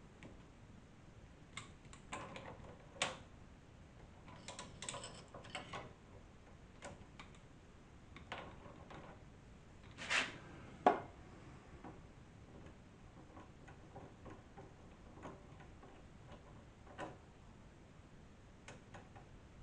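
Scattered light metallic clicks and taps from tools and motorcycle fork parts being handled during fork disassembly, with two louder knocks about ten seconds in.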